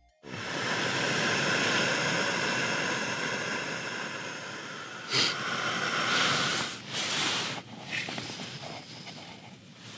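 A steady hissing rush starts suddenly and holds for about five seconds, then eases and turns uneven, broken by a few knocks and rustles.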